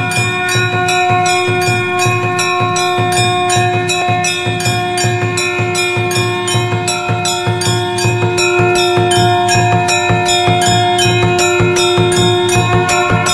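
Hindu temple bells rung in quick repeated strokes, about three a second, over a long steady held tone from a blown conch (shankh) that fades near the end.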